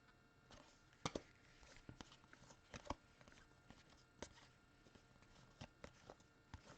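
Faint handling of trading cards: scattered soft clicks and taps as cards are slid and set down.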